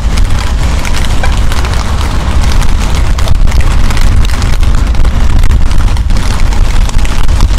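Wind buffeting the camera microphone in a steady, loud low rumble, with the hiss and patter of rain over it.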